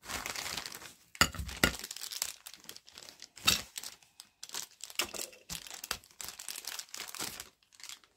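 Clear plastic packaging bag crinkling as hands open it and pull out the figure's parts, in irregular crackles that stop shortly before the end.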